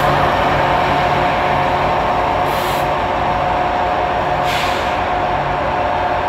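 EMD SD70M-2 diesel locomotive at the rear of a loaded coal train running as it moves away, fading slowly, with a steady whine over a pulsing engine throb. Two short hisses come about two and a half and four and a half seconds in.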